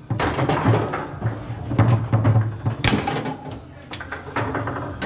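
Foosball table in play: irregular sharp knocks and clacks of the ball and the rod-mounted players striking, the loudest about three seconds in, over steady low background noise.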